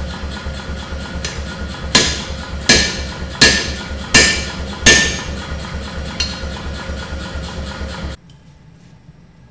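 Power hammer striking red-hot Damascus steel between its dies, with sharp ringing blows about 0.7 seconds apart, five of them loud and a few lighter. Underneath is the machine's steady fast low pulsing. Everything cuts off abruptly near the end.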